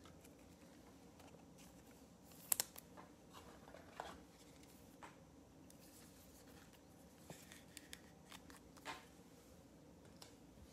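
Faint clicks and rustles of trading cards and plastic being handled over near silence, the sharpest about two and a half seconds in. Near the end, a card is set into a clear acrylic card stand.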